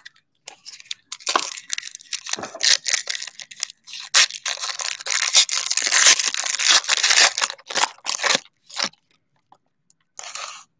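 Plastic wrapping on a box of trading cards being torn open and crinkled. It comes as irregular rustling tears, densest and loudest from about halfway through, then stops, with one short last rustle near the end.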